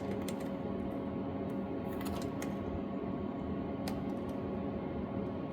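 Scattered light metallic clicks and taps of hand tools working the valve adjuster and its lock nut on a small four-stroke engine, over a steady hum.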